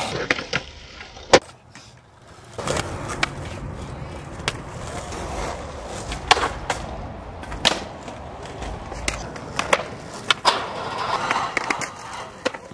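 Skateboard wheels rolling on hard ground, broken by a string of sharp clacks as the board hits the ground, the loudest about a second and a half in. The rolling dies down briefly around two seconds in, then picks up again.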